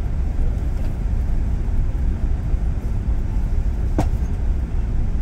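Steady low rumble of an Airbus A380 heard from inside the main-deck passenger cabin, with a single sharp click about four seconds in.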